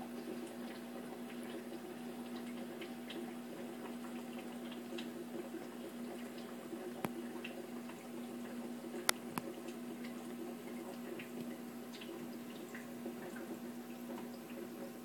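Aquarium sponge filter bubbling faintly over a steady low hum, with scattered small drip-like clicks and two sharper clicks about seven and nine seconds in.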